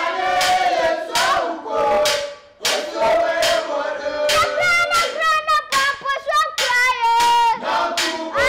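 A boy singing in a high voice, a wavering, chant-like melody. Sharp percussive strokes, hand claps or drum hits, fall about twice a second behind it.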